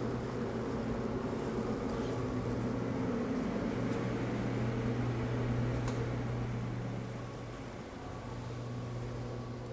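Steady mechanical hum of the hydraulic kettle lift running as it tips a batch of cooked caramel onto the table. The hum eases off about seven seconds in, with a couple of faint clicks.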